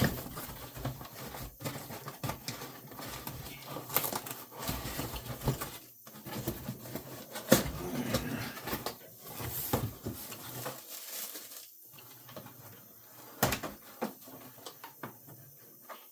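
Zip ties being cut to free an RC truck from its cardboard packaging: cardboard and plastic rustling and scraping, broken by a few sharp clicks, quieter near the end.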